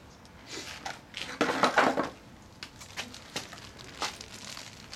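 Packaging crinkling and rustling as small lock parts are handled and taken out, loudest about one and a half to two seconds in, followed by scattered light clicks.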